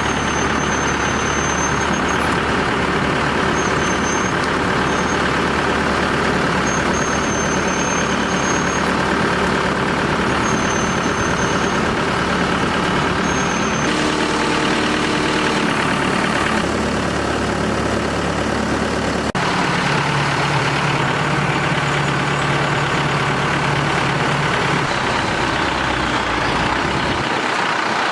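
Pneumatic rock drilling rig's engine running steadily while the rig is operated, with a faint high whine coming and going in the first half and the sound shifting about fourteen and again about nineteen seconds in.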